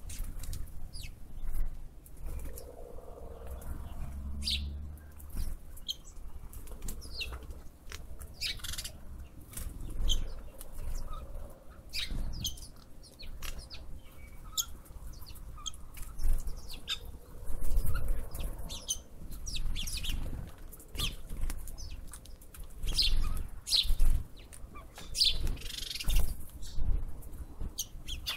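Wind buffeting the microphone in gusts, with small birds chirping.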